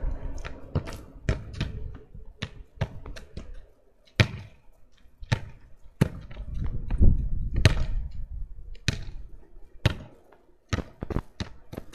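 A football being kicked against a wall and bouncing on the ground: a run of sharp thuds at irregular intervals, a few much louder than the rest, with lighter taps between them. A low rumble comes in for a couple of seconds in the middle.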